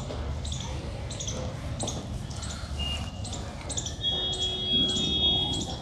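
Small birds chirping in short, quick calls that repeat every fraction of a second. From about four seconds in, a felt-tip marker squeaks steadily on a whiteboard for under two seconds.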